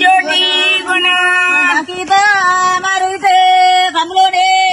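Tulu paddy-transplanting folk song (natti paddana) sung in long, drawn-out held notes.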